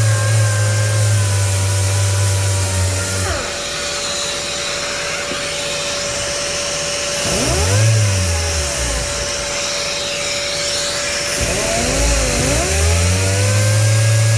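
A power sander with an 80-grit 3M Xtract disc is sanding body filler, over the steady run of a dust extractor. The sander's hum drops and winds back up about 3, 8 and 12 seconds in as its speed changes.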